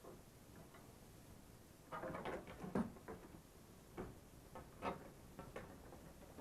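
Faint clicks, taps and rustling of hands fitting a diesel heater's metal exhaust pipe and its fittings, picking up about two seconds in with a few sharper clicks.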